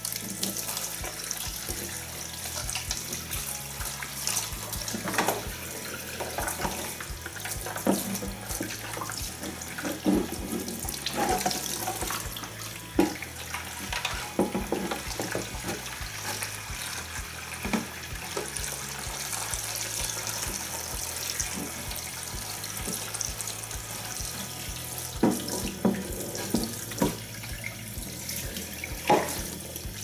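Kitchen tap running into a sink, water splashing over a plastic washing-machine detergent drawer as it is scrubbed clean by hand. Short knocks of the plastic drawer are heard now and then, several close together near the end.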